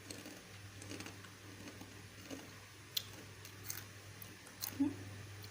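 A person chewing food softly, with small wet mouth sounds and scattered light clicks over a low steady hum.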